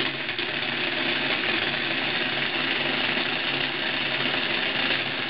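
A power drill's electric motor running steadily at constant speed, fed through a converter circuit.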